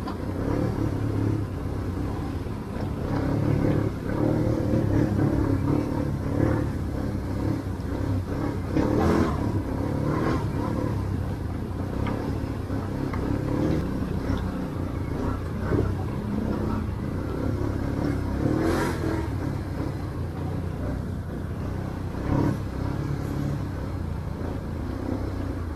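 ATV engine running at low trail speed over rough ground, rising and falling with the throttle. A few sharp knocks stand out over it, from the machine jolting over rocks.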